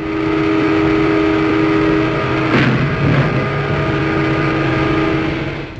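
Train horn sounding one long, steady blast, with a crash about halfway through as the train strikes a vehicle at a level crossing.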